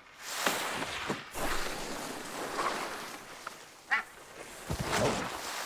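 Animated sound effects of bodies sliding and tumbling through snow: a hissing slide broken by several knocks, with a short animal cry about four seconds in.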